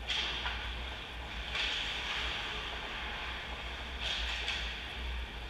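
Hockey skates scraping and carving on the ice: a hissing noise that swells sharply about a second and a half in and again about four seconds in, over a low steady hum.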